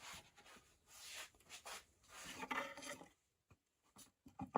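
Wooden jig being handled and slid across the saw table: a few soft rubbing swishes, then light knocks near the end.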